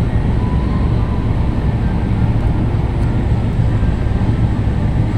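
Steady low rumble aboard a car ferry under way, the ship's engine drone and motion noise running evenly without change.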